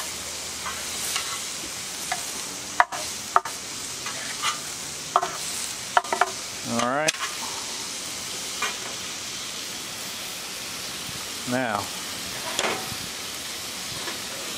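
Pork chops sizzling steadily on the steel cooktop of a Blackstone 36-inch flat-top griddle. A metal spatula clicks against the board and griddle a couple of times about three seconds in, and scrapes with short squeals about seven and twelve seconds in.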